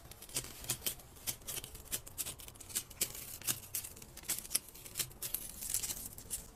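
Paper and plastic sticker sheet crinkling and crackling as it is handled and peeled, with irregular small clicks, a few a second, thickest near the end.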